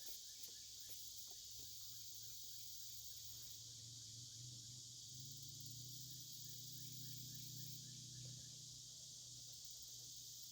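Faint outdoor insect chorus, crickets trilling steadily, with a low hum that swells in the middle and fades again; no hiss of air escaping from the tire's new valve stem.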